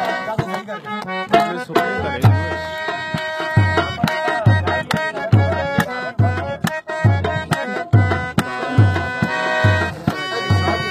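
Harmonium playing a melody of held reedy notes, over a hand drum keeping a steady beat with deep bass strokes about every two-thirds of a second.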